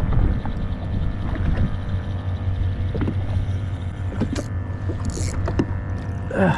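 Jet ski engine idling steadily under a low hum, with a few small knocks and a couple of brief hisses.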